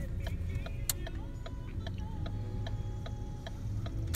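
A Ford car's turn-signal indicator ticking steadily in an even rhythm, heard inside the cabin over a low engine and road hum as the car makes a right turn.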